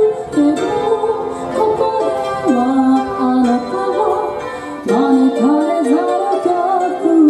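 Women singing a pop song into microphones over a recorded instrumental backing track, played through a small PA speaker.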